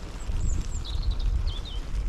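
Wind rumbling on the microphone, with a small bird giving a few short, high chirps through the middle.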